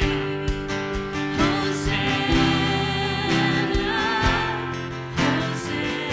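Worship band music: held chords and a steady beat of drum hits under a singing voice.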